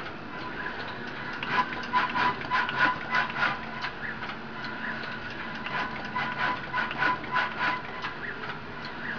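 Muhlbauer TAL 9000 RFID inlay assembly machine running: a quick, uneven stream of mechanical clicks and ticks over a steady high hum. The clicking grows busier about one and a half seconds in and again about six seconds in.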